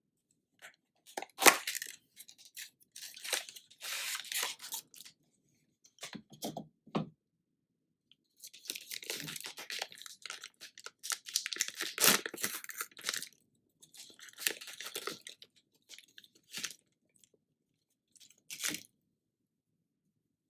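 Close-miked eating sounds: crunching and chewing in irregular bursts with short pauses, a longer dense stretch of crackly noise in the middle.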